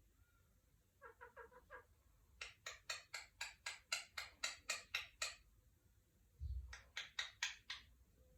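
Pet parrot calling in three runs of quick, evenly repeated squawks: a short fast run, then a longer run of about a dozen notes, then a shorter one near the end. A low thump comes just before the last run.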